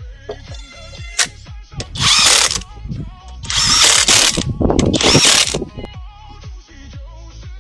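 A power tool run in three short bursts, the middle one the longest, with a sharp click just before them, over background music.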